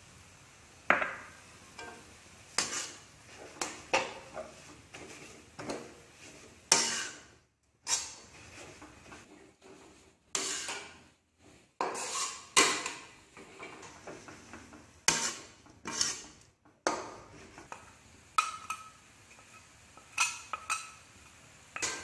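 Metal spatula scraping and knocking against a wok while dry-stirring a shredded filling with sesame seeds: about twenty irregular clanks and scrapes, some with a short metallic ring.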